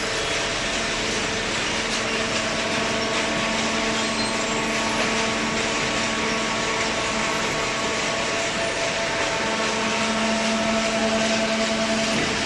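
Cardboard baler's motor running steadily: a hum with several steady tones over a hiss. The low hum grows stronger near the end.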